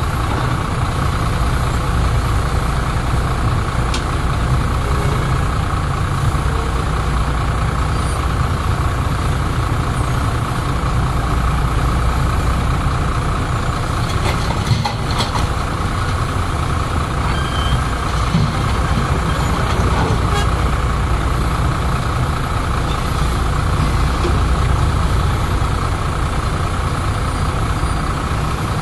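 Heavy diesel machinery running steadily: a deep engine drone from the excavator and dump trucks, with a steady higher tone above it. A few brief clatters come about halfway through.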